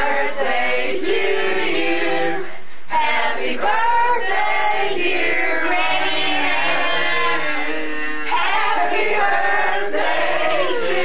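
A group of people singing together, women's and men's voices mixed, in held, drawn-out phrases.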